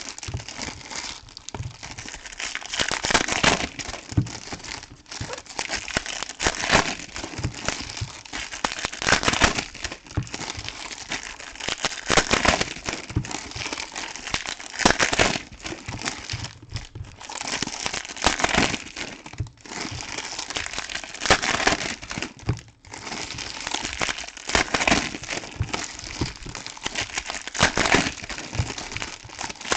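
Foil trading-card pack wrappers from Topps Chrome packs being torn open and crumpled by hand, in irregular crinkling bursts with several louder rustles.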